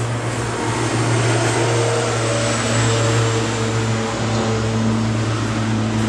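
A steady low machine hum with an even hiss over it.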